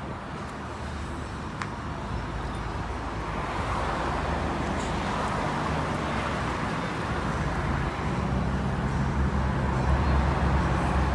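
Car engine running with steady road or traffic noise, its low hum growing louder over the last few seconds.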